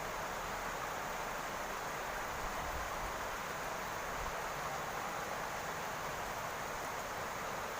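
Rain falling steadily on a roof, an even, unbroken hiss.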